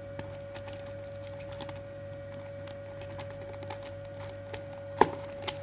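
Dried star anise pods handled and counted out one by one, giving scattered small clicks, with a sharper click about five seconds in. A faint steady hum runs underneath.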